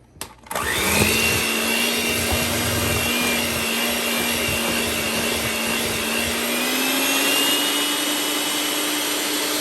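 Electric mixer switched on about half a second in and running steadily as it creams cream cheese and sugar together, with low knocking from the beaters in the thick mixture; its motor pitch rises a little about two-thirds of the way through.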